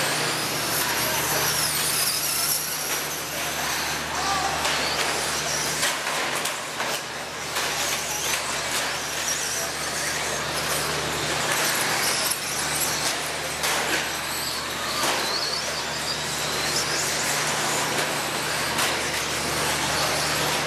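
Radio-controlled cars racing on a dirt track: the high whine of their motors rises and falls as they speed up and slow down, over a constant scrabble of tyres on dirt and short knocks. A steady low hum runs underneath.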